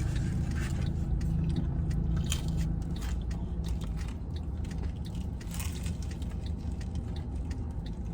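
A person biting into and chewing a slice of brick-oven pizza close to the microphone: scattered short crunchy bites and mouth sounds over a steady low hum.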